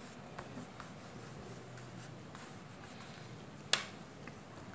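Faint sounds of hands handling and rubbing over pastel on paper, with a few light ticks and one sharp click about three-quarters of the way through.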